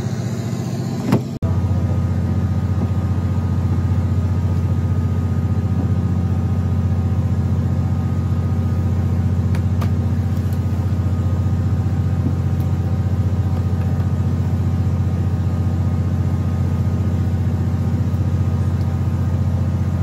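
A fishing boat's engine running with a steady low drone. A short click comes about a second in, and after it the drone is louder.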